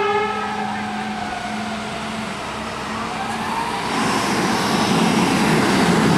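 Emergency vehicle siren in a slow wail on responding fire department apparatus: the pitch falls over about three seconds and then climbs again. A horn blast cuts off just at the start. From about four seconds in, truck engine and road noise grow louder as the vehicles pass.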